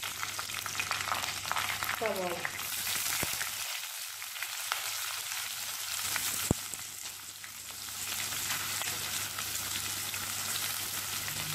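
Hot coconut oil sizzling and crackling in a clay pot with a tempering of mustard seeds, curry leaves, dried red chillies and green chilli. About six seconds in, sliced onion is tipped in with one sharp knock, and the sizzle eases for a moment before picking up again.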